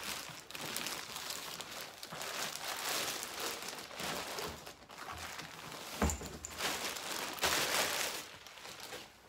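Crinkling and rustling as a new tool bag is unwrapped and opened, with a knock about six seconds in.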